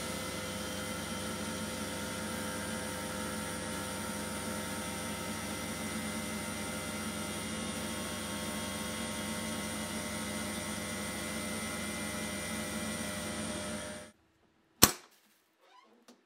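Sandblasting cabinet's blast gun running: a steady hiss of air and abrasive with a steady hum underneath. It cuts off abruptly about two seconds before the end. A single sharp click follows, the loudest sound, then a few faint knocks.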